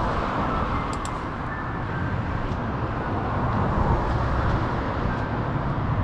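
Steady road traffic noise, an even wash of sound with no distinct events.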